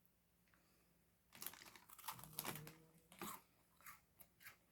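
Faint crisp crunching and crackling of a child chewing cheese crackers, starting about a second and a half in, followed by a few scattered small crunches.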